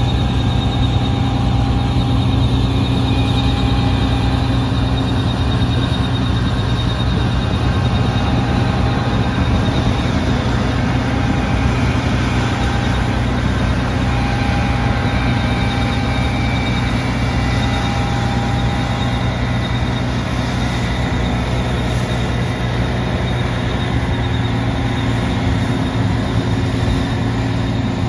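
New Holland CR11 combine harvester running steadily while harvesting wheat: a constant low engine drone with steady whining tones from its drives above it.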